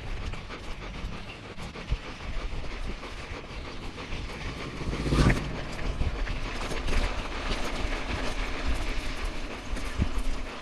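Bicycle riding over a gravel road: tyres crunching on loose stones and the bike rattling, with many small clicks over a low rumble. A louder jolt about five seconds in.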